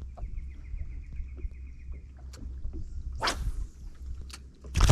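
Spinning reel squeaking in one high, steady squeal for nearly two seconds, a squeak that has come back in a reel that was silent before. A short rush of noise follows, then a loud thump near the end.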